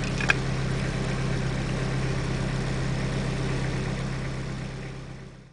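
A machine running with a steady low hum, fading out near the end.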